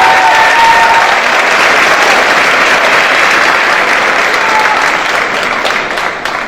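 Audience applauding in a hall, a dense steady clapping that tapers off near the end.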